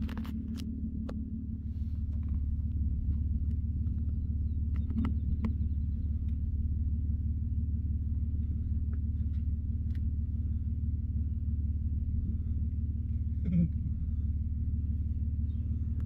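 A motor vehicle's engine running steadily, a low rumble that grows a little louder over the first couple of seconds. A few sharp clicks sound near the start.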